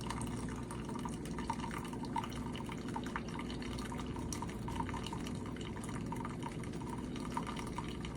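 Keurig K-Supreme pod coffee maker brewing: a steady machine hum with coffee dripping and trickling into the cup.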